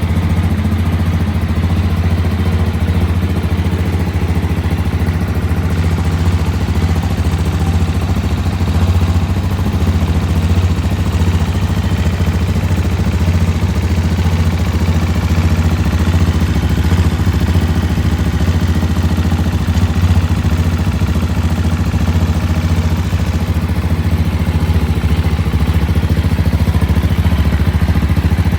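Husqvarna Vitpilen 701's single-cylinder engine running steadily at idle, a low, even sound with no revving.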